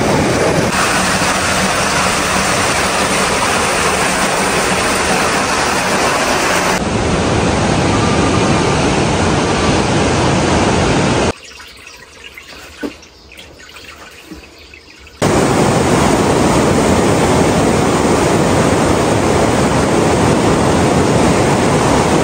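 Rushing river water pouring over rock ledges in rapids, a loud steady rush. It cuts off abruptly for about four seconds in the middle, leaving only faint quiet sounds, then the rush comes back just as abruptly.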